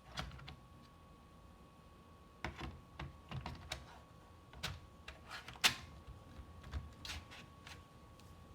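Scattered light clicks and taps from a laptop being handled, irregular rather than a steady typing rhythm, with one sharper click a little past the middle.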